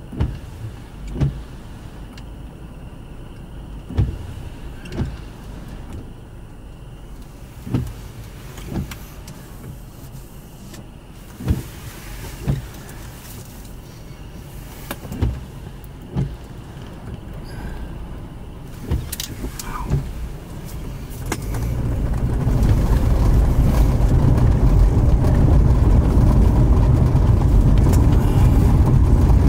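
Vehicle road noise with recurring sharp thumps, often in pairs about a second apart. About two-thirds of the way in, a much louder, steady low rushing rumble builds up and stays.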